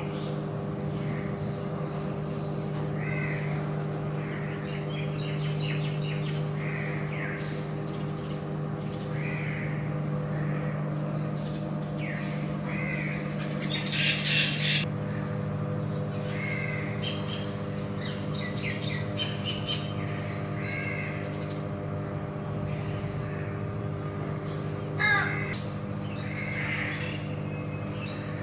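Birds calling and cawing again and again over a steady machinery hum made of several fixed tones. A louder burst comes about 14 s in and a sharp one about 25 s in.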